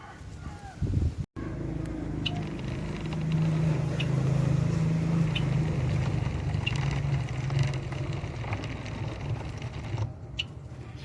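Motor vehicle engine running close by, a steady low hum that swells in the middle and eases off near the end. Short high chirps of small birds are heard over it now and then.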